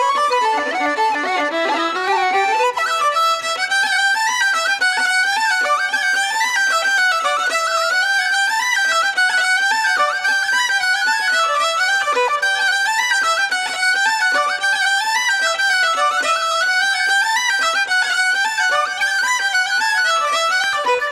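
Fiddle and tin whistle playing an Irish reel together, with fast, even running notes in a bright upper register and no bass or percussion underneath.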